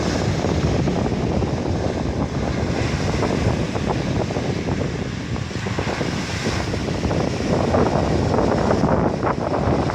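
Wind buffeting the microphone over small waves of the Sea of Azov washing on the shore, a steady rushing noise.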